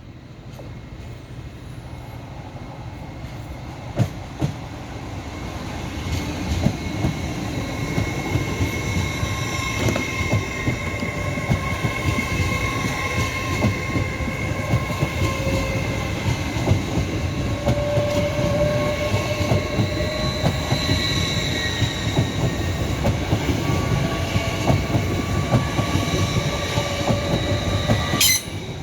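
A train running along the track, its rumble building over the first several seconds and then holding steady, with rapid clicking of wheels over rail joints and long, thin, high tones drawn out above it. The sound cuts off abruptly just before the end.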